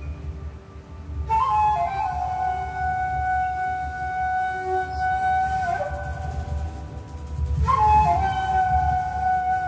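Live jazz trio: an end-blown flute plays long held notes, each phrase opening with a quick step down and the first dropping to a lower note before a second phrase enters. Bowed double bass and drums run low underneath.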